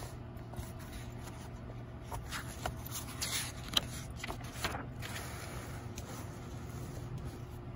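Pages of a book being turned and handled: a few soft paper rustles and scrapes in the middle, with one small sharp click, over a faint steady hum.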